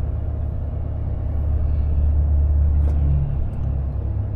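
Volvo FH460 truck's 13-litre straight-six diesel engine running under way, a steady low drone heard from inside the cab, shifting in pitch about three seconds in.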